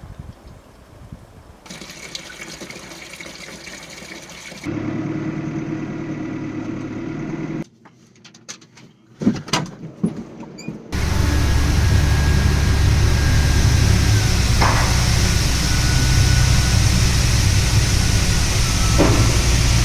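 A series of short outdoor clips of farm machinery, ending in a heavy diesel engine running steadily at a constant loud drone for the last several seconds. Before that come quieter stretches with a lower engine hum and a few sharp knocks.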